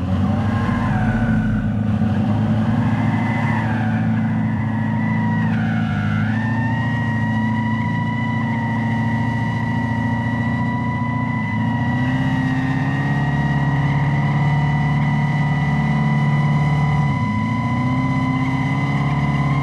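Dodge Charger Daytona Scat Pack electric car doing a smoky burnout: its Fratzonic Chambered Exhaust gives out a steady synthetic engine note over the high, steady squeal of the spinning tyres. The squeal dips in pitch briefly about six seconds in, then holds.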